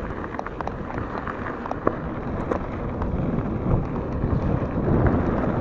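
Wind buffeting the microphone and mountain-bike tyres rolling over a gravel track at speed, with scattered clicks and rattles from stones and the bike. The rush grows louder over the second half.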